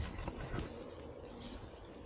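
Faint rustling of tall grass and brush around a person moving among it, over a low, uneven wind rumble on the microphone.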